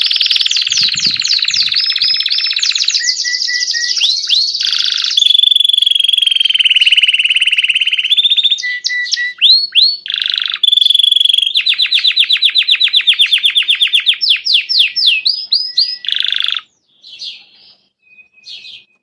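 Belgian canary singing a long, unbroken song of fast trills and rolls, with a run of rapidly repeated notes in the middle, stopping suddenly a few seconds before the end. A few faint short chirps follow.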